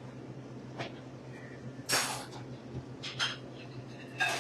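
A few short handling noises from kitchen prep work, brief knocks and scrapes with the loudest about two seconds in, over a steady low hum.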